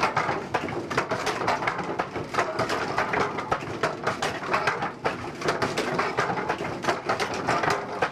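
Wooden coffee-pounding mill working: dense, irregular wooden knocking and clattering, several knocks a second, without a break.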